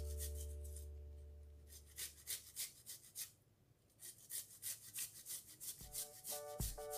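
Fresh ginger being grated on a flat metal rasp grater: quick scraping strokes about three a second, with a short pause midway. Background music fades out at the start and comes back near the end.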